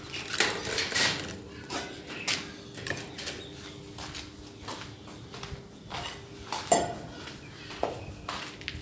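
A flock of young Australorp chickens pecking feed from a pan: rapid, irregular taps of beaks on the dish, with a louder knock near the end.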